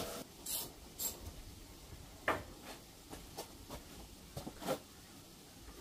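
Light, irregular clicks and taps from hand tools and bolts with spring washers being fitted by hand, about eight in all, the sharpest about two seconds in, with a couple of short rustles near the start.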